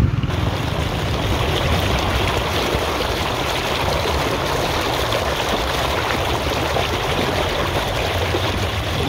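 Water rushing and splashing steadily down a narrow channel.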